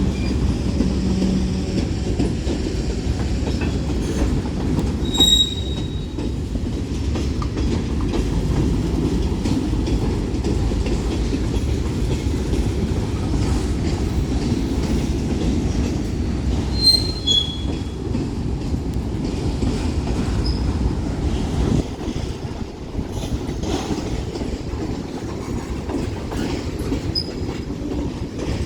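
Freight cars of a Union Pacific manifest train rolling past: a steady rumble of steel wheels on the rails, with a brief high-pitched wheel squeal about five seconds in and another about seventeen seconds in.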